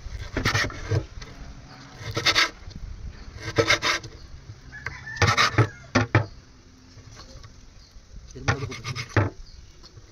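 Rough rasping strokes, something scraped or rubbed against a hard surface, coming in short irregular bursts of half a second to a second, about six in all.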